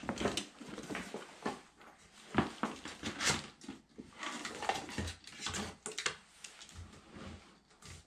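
Handling noise of gear: a plastic storage tube's cap being worked off and a fly rod drawn out of it, with irregular knocks, clicks and rustling of a vinyl dry bag.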